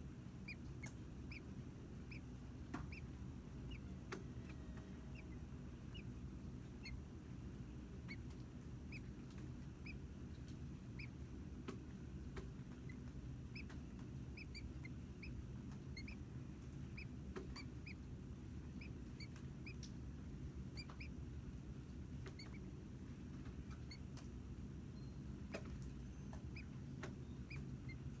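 Faint, short rising high peeps, scattered irregularly, over a steady low hum.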